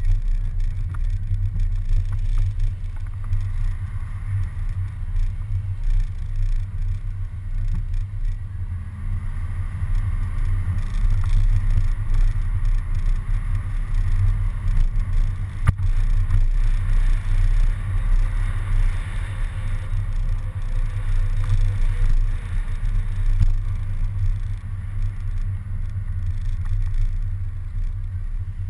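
A moving city bus heard from a camera mounted on its front: a steady, deep road and engine rumble. One sharp click comes about halfway through.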